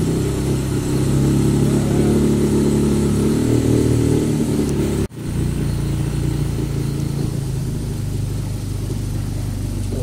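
Boat engine running steadily at cruising speed, a low hum. The sound cuts out for an instant about halfway through, then resumes.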